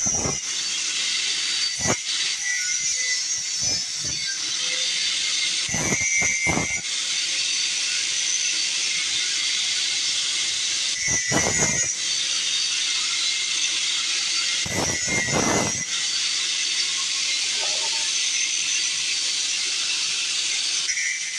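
Stick (arc) welding: the electrode's arc gives a steady, crackling hiss, breaking off briefly a few times as the arc stops and is struck again.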